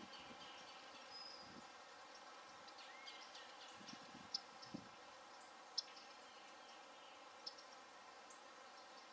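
Near silence: faint outdoor background with a few short, sharp high ticks, about four, in the middle stretch.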